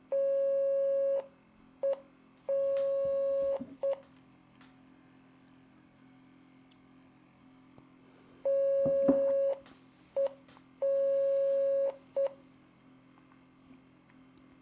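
Morse code beeps from a computer training program sounding the letter C twice: dah-dit-dah-dit, long tones of about a second and short blips, with a pause of about four seconds between the two repeats.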